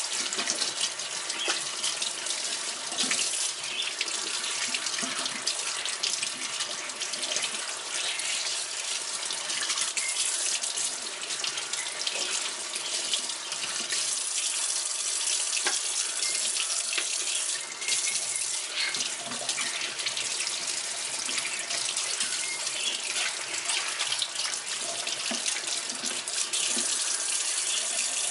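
Running water splashing steadily, with many small splashes and ticks throughout, during the cleaning of a small aquarium.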